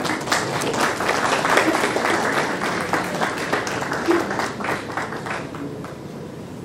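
Audience applauding in a hall, building up over the first couple of seconds and slowly thinning out toward the end.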